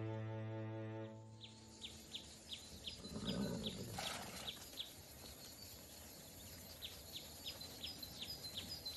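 A music cue dies away in the first second. Then comes a faint outdoor ambience of small birds chirping: short, repeated high chirps, about three a second. A brief lower sound comes about three seconds in.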